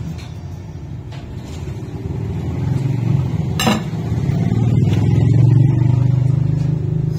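A steady low motor rumble, like a vehicle engine running, that swells louder about halfway through, with one sharp click a little past the middle.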